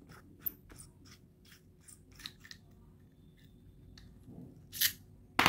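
Soldering iron's knurled metal retaining nut being twisted loose by hand from its plastic handle: a run of light clicks, about four a second, that stop about halfway. Near the end come two brief, louder scuffs.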